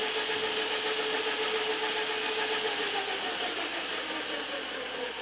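Logan 11-inch metal lathe running with a steady hum and whir. The hum sinks a little in pitch and fades about three seconds in.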